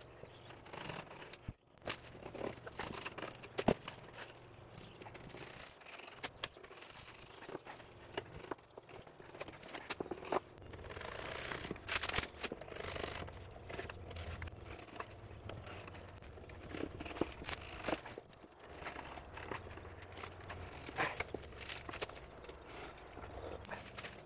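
Irregular scraping and scrubbing strokes on the wooden surface of an old water-damaged table, with scattered sharp knocks and handling bumps.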